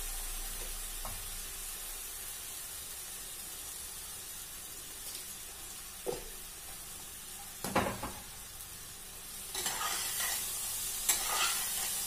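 Vegetables and sauces sizzling in a steel pot on a gas stove, a steady hiss. There are a couple of short knocks about six and eight seconds in. Near the end a steel spatula scrapes and stirs the pot in quick strokes.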